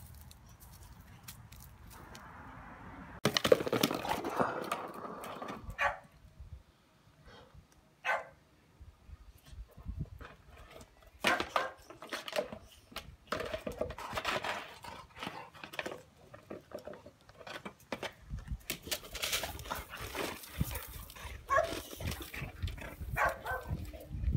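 Boxer dog playing with a black plastic plant pot, pushing and dragging it so it scrapes and knocks over brick paving and gravel, with the dog's own vocal sounds mixed in. The loudest stretch starts about three seconds in and lasts a few seconds.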